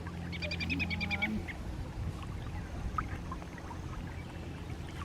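A bird calling: a quick chattering run of about ten short notes, lasting about a second, near the start.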